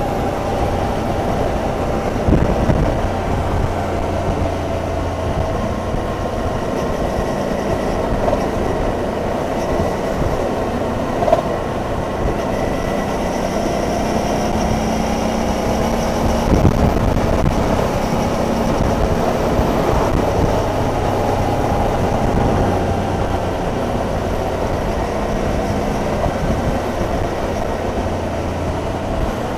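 Suzuki DL650 V-Strom's 645 cc V-twin engine running on the move, its pitch drifting gently up and down with the throttle, over a steady rush of wind and road noise. A few brief knocks are heard, about two, eleven and seventeen seconds in.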